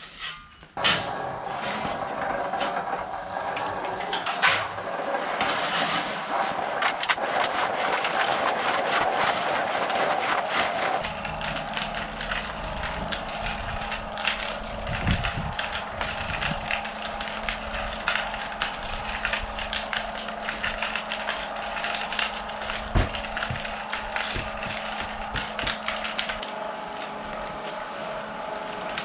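Concrete being mixed in a concrete mixer: continuous rattling and scraping of the sand, gravel and cement mix, starting about a second in, with the mixer's steady motor hum joining about eleven seconds in.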